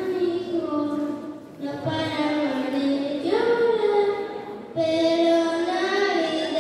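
A boy singing into a microphone, amplified over a sound system, in long held phrases with a short breath between each.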